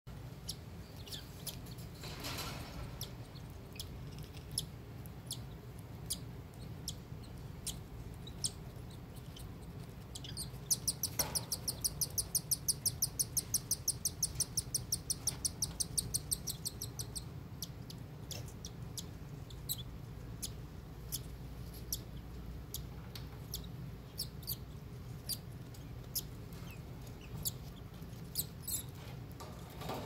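Cockatiel chicks begging while being fed by their parents: short, high chirps scattered throughout, and a rapid, even run of chirps lasting about six seconds from roughly ten seconds in, as a parent regurgitates food into a chick's beak.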